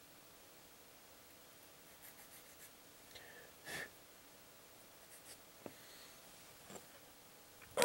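A 400-grit sanding stick lightly sanding a freshly nipped plastic model-kit part: a few short, faint rubbing strokes, the strongest just before the middle, with a couple of small clicks and a louder knock at the very end.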